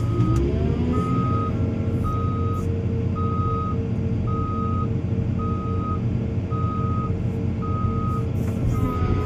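Excavator's travel/backup alarm beeping in a single steady tone, about one beep a second, over the diesel engine's low running rumble, which rises in pitch during the first second.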